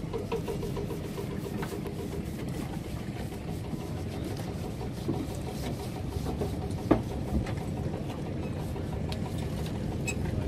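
Longtail boat's engine running steadily at low speed with an even throb. A single sharp knock about seven seconds in.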